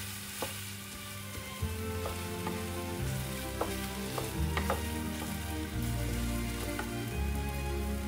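Blue-dyed rice sizzling in oil in a hot non-stick wok while a wooden spatula stirs it, with a few sharp clicks of the spatula against the pan.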